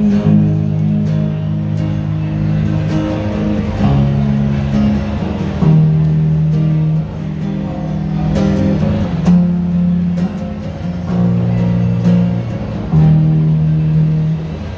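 Live band guitars playing an instrumental passage with no singing: strummed chords over low held notes, the chord changing every second or two.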